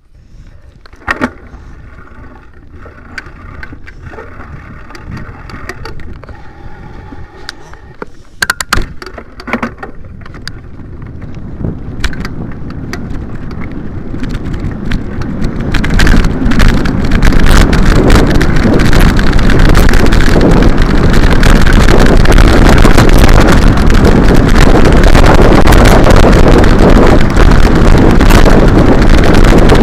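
Wind rushing over the microphone of a vehicle moving down a dirt track, with scattered knocks and rattles from the rough ground. It builds from fairly quiet to a loud, steady rush about halfway through as the speed picks up.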